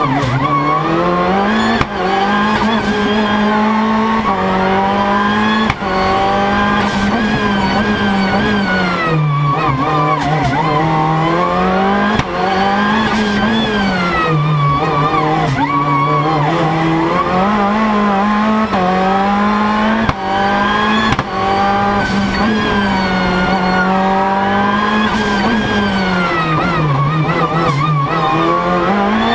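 Race car engine heard from inside the cabin, revving hard and easing off over and over, its pitch climbing and then dropping every few seconds as the driver accelerates and lifts through the chicanes.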